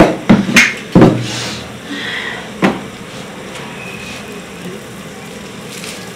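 A few sharp knocks and clatters of kitchen utensils in the first three seconds, then a steady quieter hiss from the pot of onions on the gas burner.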